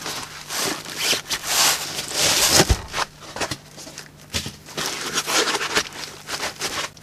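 White foam packing blocks being worked off a bench power supply in a clear plastic bag: irregular rubbing, scraping and plastic crinkling, with a dull thump a little under three seconds in.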